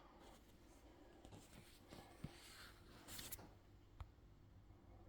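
Near silence: room tone with a few faint clicks and a brief soft rustle.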